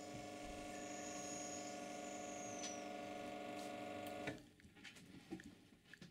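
Espresso machine pump running during a shot extraction: a steady hum made of several constant tones that cuts off suddenly about four seconds in. A few faint ticks follow.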